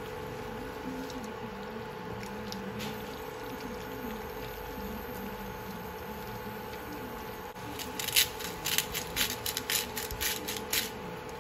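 Fettuccine being tossed in tomato sauce in a nonstick pan, with a low steady hum underneath. From about eight seconds in comes a quick, irregular run of sharp clicks and scrapes while the pasta is seasoned and stirred.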